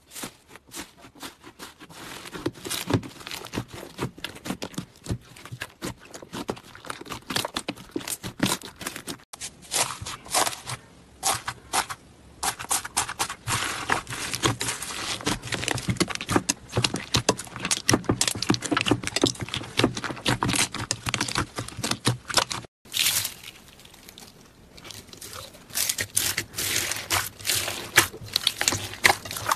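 Slime being squeezed and pressed, giving a dense, irregular run of crackling clicks and pops typical of crunchy slime. There are sudden breaks about nine and twenty-three seconds in, where one clip changes to the next.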